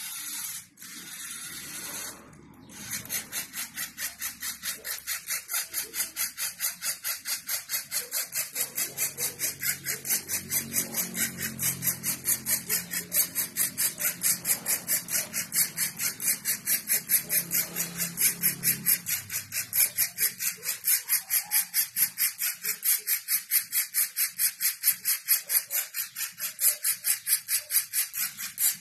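Small electric gear motors of a LEGO Mindstorms NXT line-following robot whirring in regular pulses, about three to four a second, as it steers along the line.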